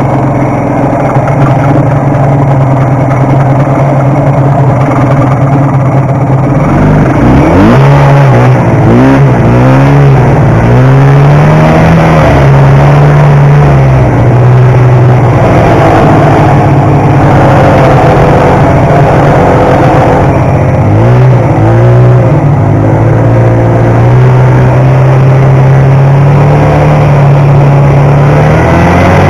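1972 Ski-Doo TNT 440 snowmobile's two-stroke twin engine running at a steady speed, then, about seven seconds in, revving up and down again and again as the sled accelerates and slows along the trail.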